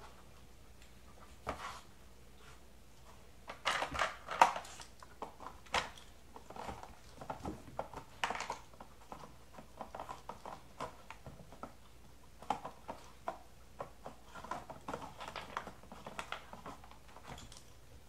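A puppy nosing and pushing the spinning plastic disc of an Aikiou puzzle feeder bowl to get at its food: irregular plastic clicks and clatters, with a cluster of louder knocks about four seconds in.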